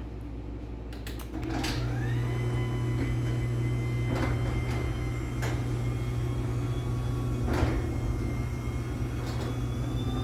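LiftMaster 84505R belt-drive garage door opener starting up after a few clicks: its motor comes on with a low hum and a whine that rises and then holds steady as it raises the door. There are occasional clunks from the door sections along the way.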